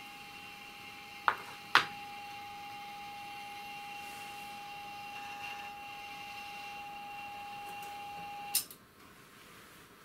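Steady electrical whine from the altimeter's coils, driven by a sine signal from a function generator, with two sharp clicks about a second in. The whine cuts off suddenly with a click near the end as the drive signal goes off.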